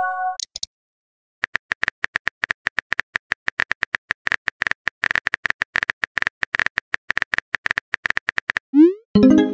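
Smartphone keyboard typing clicks, several a second, as a text message is typed out. Near the end, a short rising swoosh and a chime, a messaging app's message sound. A chime from the previous message fades in the first half-second.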